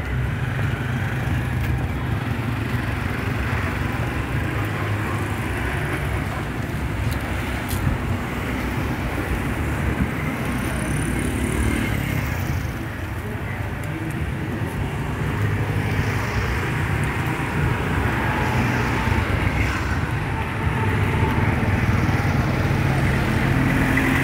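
Steady road traffic noise with the hum of passing vehicle engines. It grows louder over the last few seconds as a lorry passes close by.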